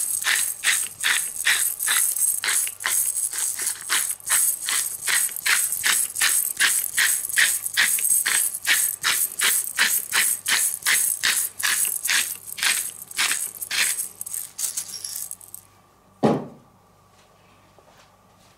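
Hand-turned pepper mill grinding pepper: a quick, regular clicking crunch, about three clicks a second, that stops after some fifteen seconds. A single thump follows shortly after.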